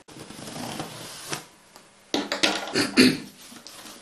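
Handling noises on a tabletop: a faint rustle and a single click, then a quick run of knocks and clatters from about halfway, the loudest shortly before the end.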